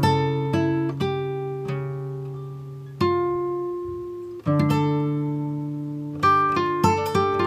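Background music on plucked guitar: chords and single notes struck and left to ring out and fade, struck again about three and four and a half seconds in, with quicker picked notes near the end.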